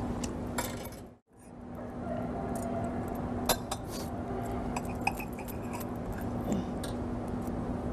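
Knife and fork clinking and scraping on a china plate as a piece of roast meat is cut, with a few sharp clinks spread through.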